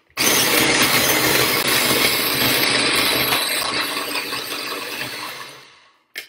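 Small electric food chopper running in pulses on frozen banana chunks, a really loud grinding whir. One long run of about five seconds tapers off near the end, and the next pulse starts just before the end.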